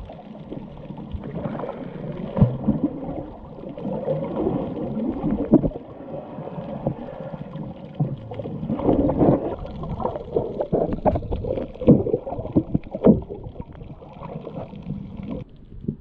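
Muffled underwater water noise picked up by a camera held below the surface: gurgling and sloshing with uneven louder surges and knocks, changing abruptly near the end.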